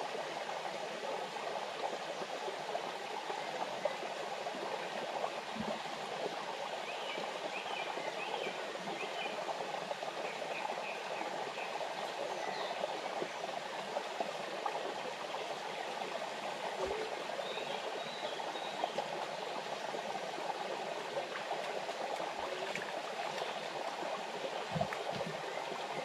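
Small forest waterfall splashing down over rocks into a stream, a steady rush of water, with a few faint high chirps now and then.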